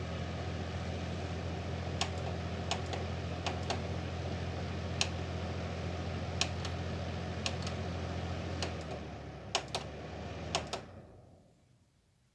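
Dehumidifier running, a steady low hum under the rush of its fan, with a dozen sharp clicks scattered through it. About eleven seconds in the hum cuts out and the fan noise dies away over about a second as the unit shuts off.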